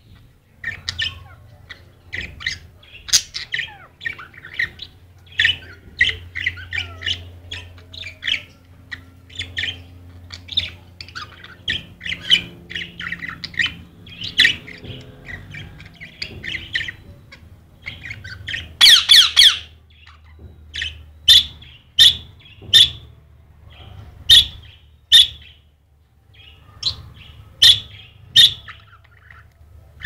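Two pet parrots, an Indian ringneck parakeet and a small yellow parakeet, squabbling: rapid chattering chirps, then a loud harsh squawking burst about two-thirds through, followed by sharp loud squawks about once a second.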